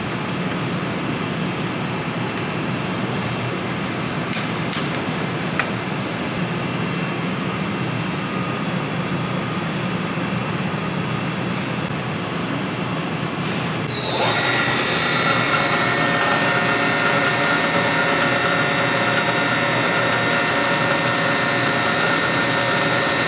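Four-ball wear tester: steady lab hum with a few metallic clicks as the clamped ball cup is set into the machine, then about two-thirds of the way through the motor starts spinning the top steel ball against the three lubricated balls, a louder steady whine with several steady tones.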